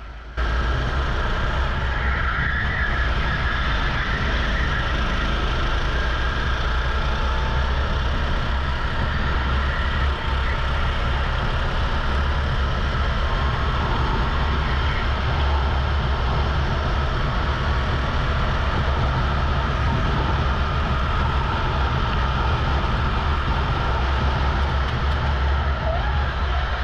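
Rental go-kart engine running steadily at racing speed, recorded onboard, cutting in abruptly about half a second in.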